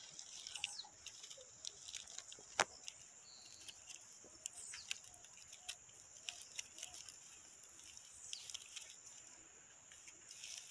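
Faint rustling and crackling of a bundle of vassourinha (broomweed) stems and a plastic strip as hands bind them into a broom, with scattered small clicks and one sharper snap about two and a half seconds in.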